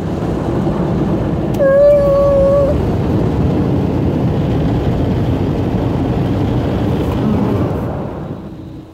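Automatic car wash working over the car, heard from inside the cabin: a steady rush of water spray and brushes on the body that dies away near the end. About two seconds in, a voice holds a wavering 'ooh' for about a second.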